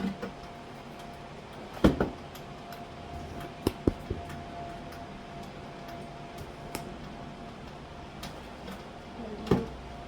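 Kitchen containers and packets knocking and clunking as they are set down in a cupboard: two sharp knocks about two seconds in, two more near four seconds, and one near the end, over a faint steady hum.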